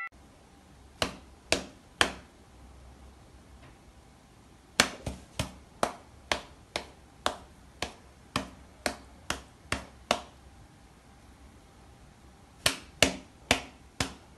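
A cat's paw slapping against an open palm in a run of sharp pats. There are three about a second in, then a quick string of a dozen or so at about two a second, then four more near the end.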